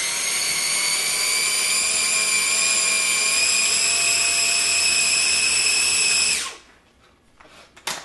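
Small electric food chopper running steadily with a high motor whine, pureeing cooked mung beans to a smooth paste, then stopping abruptly about six and a half seconds in. A sharp click near the end.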